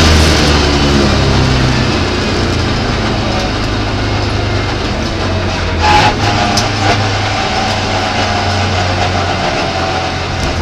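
Opel Ascona rally car's engine heard from inside the cabin. Its pitch and loudness fall over the first couple of seconds as it comes off high revs, then it runs at a steadier, lower note with road noise, and a short loud knock comes about six seconds in.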